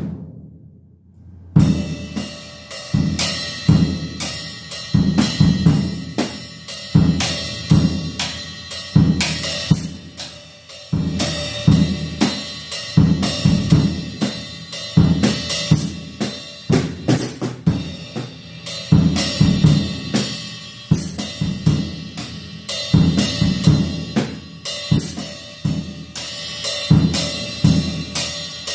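Acoustic drum kit played in a steady groove: kick drum, snare and hi-hat with cymbal crashes. The kit includes a newly added 12-inch Wuhan Western Series splash cymbal being tried out. The playing starts after a short pause about a second and a half in.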